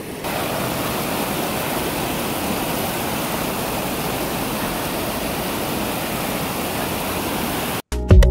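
Shallow stream water rushing and splashing over rocks and between stepping stones, a steady rush. Near the end it cuts off abruptly into loud electronic music with a beat.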